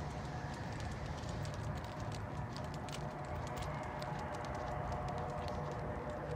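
Footsteps of a person and a guide dog walking on pavement: many small irregular clicks over a steady low outdoor hum.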